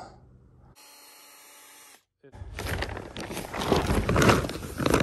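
Loud, uneven rustling of cloth brushing close against the microphone, with handling bumps, taking up the second half; before it there is only a faint steady hiss and a brief dead gap.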